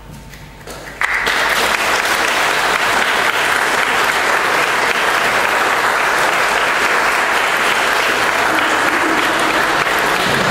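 Audience applauding, breaking out suddenly about a second in and keeping up an even clapping.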